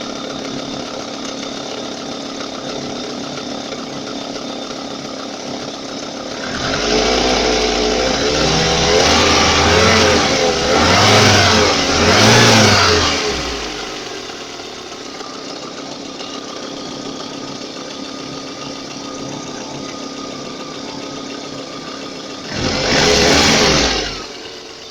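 VAZ 2114's four-cylinder engine idling, then revved in several blips for about seven seconds and briefly once more near the end. It has a knock that comes and goes, which the owner suspects is camshaft end play.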